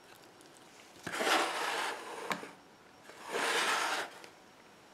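Handling noise from a seasoned whole chicken on a rotisserie spit being moved on a metal sheet pan: two scraping sounds about a second long each, with a sharp click between them.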